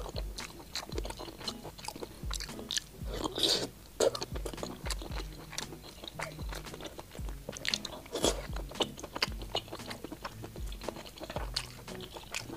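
A person chewing and biting pieces of spicy braised pork intestine close to the microphone: a quick, uneven run of wet chews and bites, with faint steady background music underneath.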